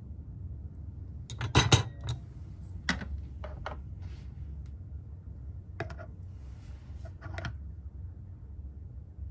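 Glass test tube clinking against a wire test-tube rack as it is set in place, a loud cluster of clinks about a second and a half in. Several lighter clicks and taps follow.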